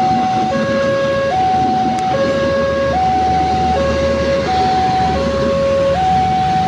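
Level-crossing warning alarm sounding a steady two-tone hi-lo pattern, switching pitch about every 0.8 seconds, over the hiss of heavy rain.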